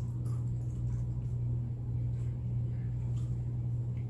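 Tortilla chips being chewed, with faint crunches about once a second over a steady low hum.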